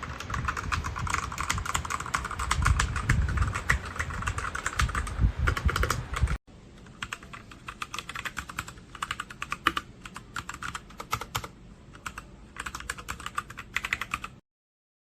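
Typing on a Machenike K500 mechanical keyboard: a fast run of keystrokes with deep thuds, then after an abrupt cut about six seconds in a quieter, sparser run of keystrokes that stops suddenly about a second before the end.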